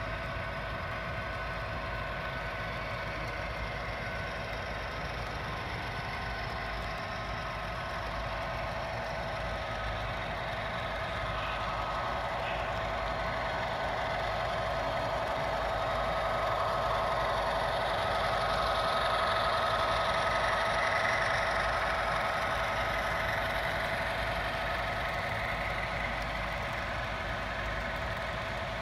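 Model trains running on the layout: a steady mechanical hum with a low rumble and a few constant tones. It swells louder in the middle as the model Union Pacific coal train's locomotives come around the curve close by, then eases as the coal cars follow.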